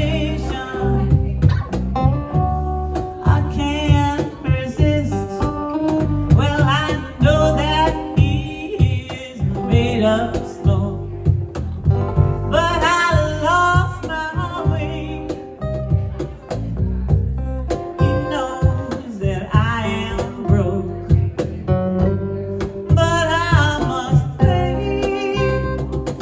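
Live acoustic-rock band playing: electric lead guitar and acoustic guitar over a steady cajon beat, with a woman singing at times.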